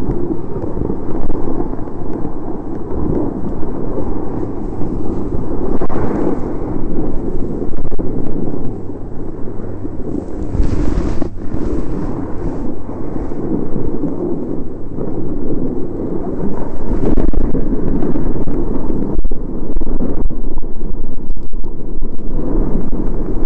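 Wind buffeting the microphone of a camera moving fast down a ski slope: a loud, gusty low rumble, with brief hissing scrapes of snow about six and eleven seconds in.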